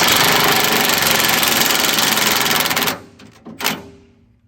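Impact wrench hammering a nut tight on the brush hog mower deck for about three seconds, a rapid rattling buzz that stops abruptly. A single short knock follows.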